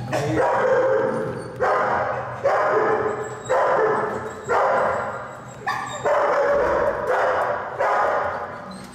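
A dog barking repeatedly, about seven or eight barks roughly a second apart, each starting sharply and trailing off before the next.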